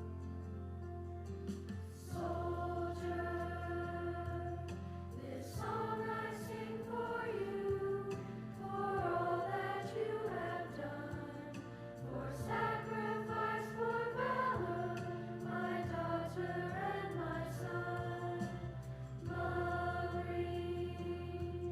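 Music with a choir of voices singing over held low chords that change every few seconds.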